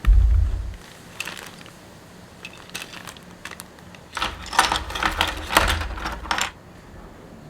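A heavy low thump at the start, then plastic clicks and clacks from a mechanical keyboard with Cherry MX Brown switches as its keycaps and switches are handled. The clacks come singly at first and then in a quick cluster over about two seconds near the end.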